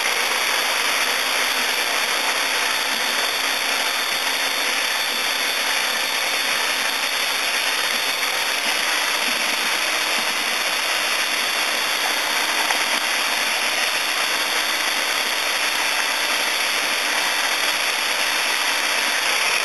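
Electric drill with a paint-mixing paddle running steadily, blending tung oil into a gallon of milk paint.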